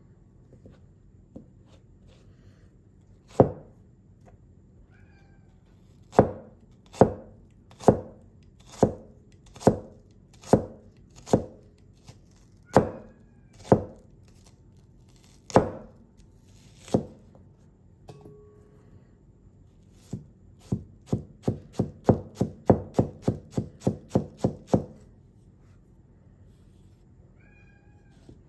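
A small, thick carbon-steel cleaver chopping onion on a synthetic cutting board: dull knocks of the blade meeting the board. One knock comes a few seconds in, then about eleven spaced roughly a second apart, then near the end a quick run of about sixteen fast chops.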